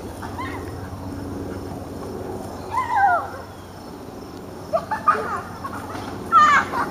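Dogs yelping in play: three short high calls that fall in pitch, about three, five and six and a half seconds in, the last a wavering squeal.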